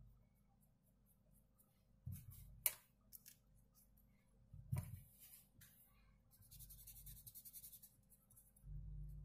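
Faint handling noises at a tabletop: a few light clicks and knocks, the sharpest about two and a half seconds in, then a second or so of rapid scratching and a low dull thump near the end.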